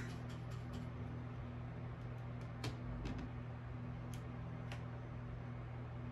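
Steady low hum with a few faint clicks and taps of tools being handled on a workbench.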